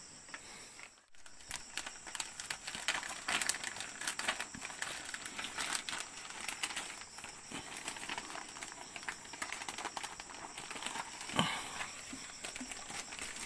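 Irregular crinkling and crackling clicks, like something being handled, with a brief drop-out about a second in.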